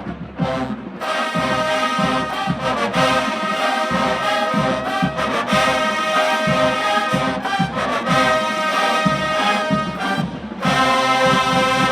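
College marching band brass and drums playing loudly, the drums striking steadily under the horns; the band ends on a long held chord that cuts off sharply near the end.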